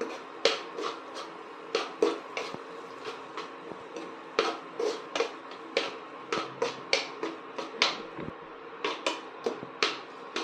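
A cooking utensil stirring soaked sago pearls in a nonstick frying pan, clinking and scraping against the pan in quick irregular strokes, roughly three a second.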